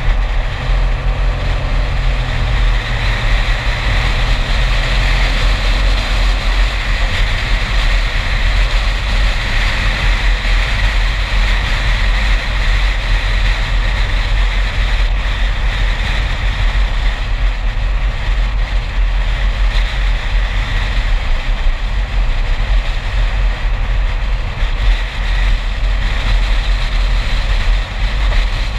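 A car driving steadily along a road: wind rushing and buffeting over a camera microphone mounted above the hood, with road and engine noise underneath.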